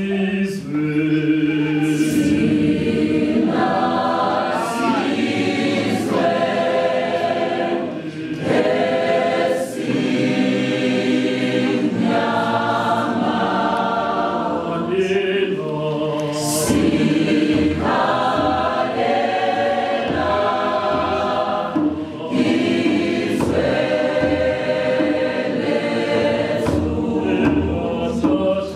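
Mixed choir of men and women singing in harmony, phrase after phrase with short breaths between.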